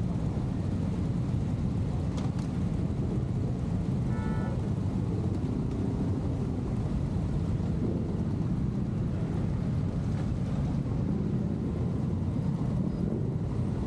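Motorcycle engines of a large group running at low speed as the column rides off, a steady low rumble. A short high tone sounds briefly about four seconds in.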